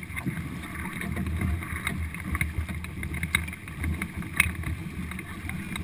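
Paddles of a four-person racing canoe stroking and splashing through the water, with wind on the microphone. Short ticks run through it, and one sharper knock comes about four and a half seconds in.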